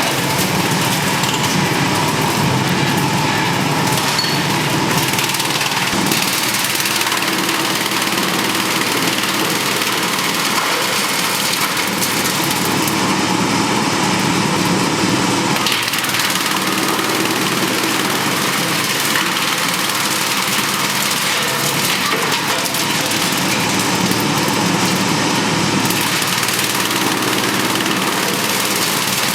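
Drum wood chipper running, a loud, steady mechanical din that stays even throughout.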